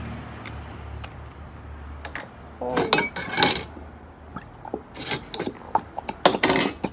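Plastic Elmer's glue bottles being opened and squeezed over small tin pails: scattered clicks, scrapes and rubbing noises, with a louder cluster about three seconds in and a quicker run of clicks near the end.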